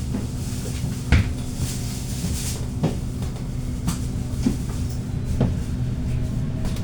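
Bus engine humming steadily, heard from inside the bus, with a few sharp knocks or rattles from the bus interior; the loudest comes about a second in.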